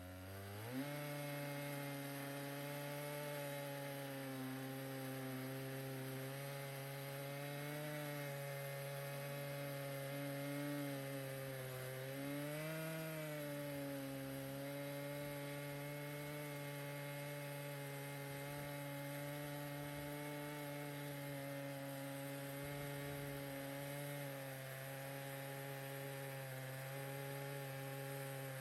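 Stihl MS 881 two-stroke chainsaw on a chainsaw mill running steadily under load, ripping a bigleaf maple log lengthwise into a board. Its pitch dips briefly right at the start and wavers slightly about halfway through.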